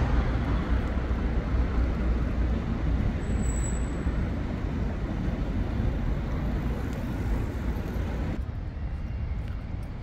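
Steady city traffic noise: a continuous low rumble of passing road vehicles.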